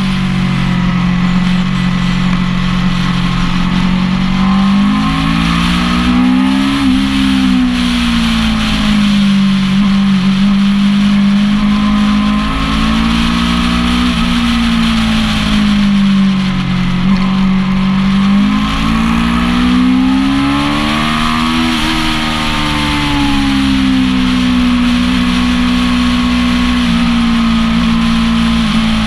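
Motorcycle engine at racing speed on a circuit, heard onboard with heavy wind rush on the microphone; its pitch climbs and falls as the rider accelerates and slows through the corners, peaking twice.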